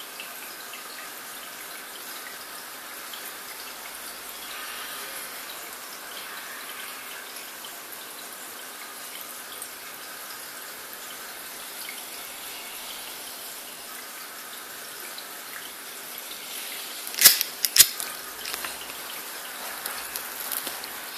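Steady trickle and hiss of water in an aquarium, as from a filter's flow. Two sharp knocks come close together about three-quarters of the way through.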